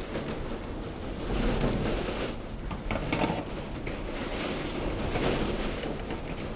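Soft, uneven rustling and scraping of plastic parts being handled, as the LCD screen and its ribbon cable are worked out of a car instrument cluster's plastic housing.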